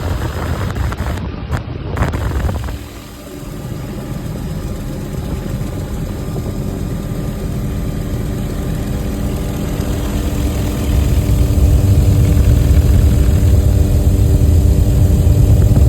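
Helicopter in flight: a steady engine and rotor drone over a low rumble, getting louder about eleven seconds in.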